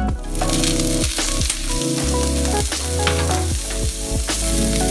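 Broccoli dropping into hot, bubbling fat in a frying pan and sizzling steadily, with background music with a steady beat playing over it.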